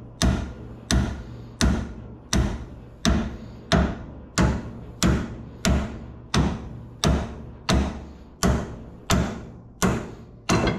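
Hammer striking a vice grip clamped onto a torsion bar, driving the bar back out of its socket on a 1969 Plymouth Fury III. Steady, evenly paced metal-on-metal blows, about three every two seconds, each ringing briefly.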